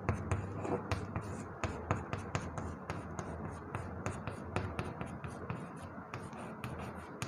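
Chalk writing on a blackboard: a run of quick, irregular taps and scratches as letters are chalked on.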